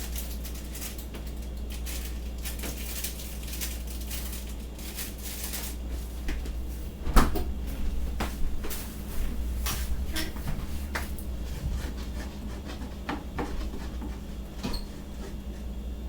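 Dishes and kitchenware knocking and clinking as they are handled and set down, with many small knocks and one sharper knock about seven seconds in, over a steady low hum.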